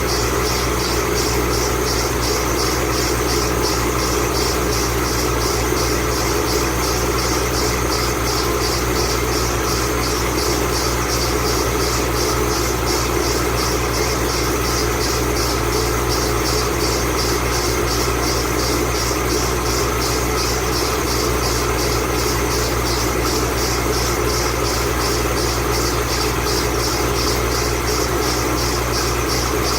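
2008 Ford Mustang Bullitt's 4.6-litre V8 idling steadily, with a high-pitched squeal from its 8-rib serpentine belt that pulses quickly and evenly.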